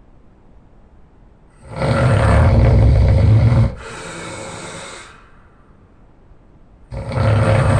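A man snoring loudly. One loud snore lasts about two seconds, followed by a softer breath. The next loud snore starts near the end.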